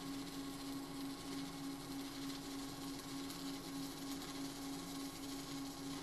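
Shielded metal arc (stick) welding with a SunArc electrode: the arc burns with a steady hiss while a bead is run, over a steady low hum.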